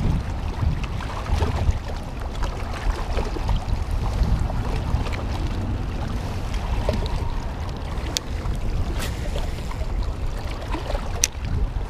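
Wind buffeting the microphone in a steady low rumble, with small waves lapping against the rocky shore. A few faint sharp ticks come in the second half.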